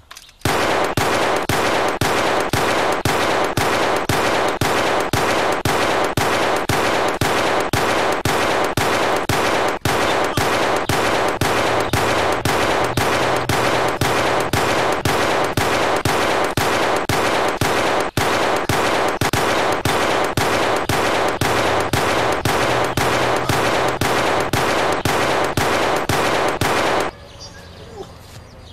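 Loud, continuous automatic machine-gun fire laid on as a sound effect, pulsing about twice a second. It starts half a second in and cuts off abruptly near the end.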